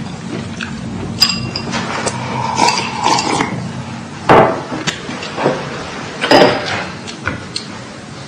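Chopsticks and porcelain bowls clinking and knocking during a meal: a scatter of sharp clicks and knocks. The two loudest come about four and six seconds in.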